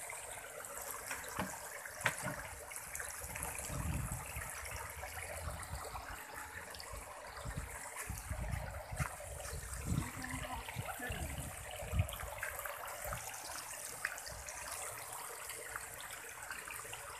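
Steady splashing and sloshing of water from masses of catfish churning at the surface of a crowded tarpaulin pond, with a few dull knocks and low bumps.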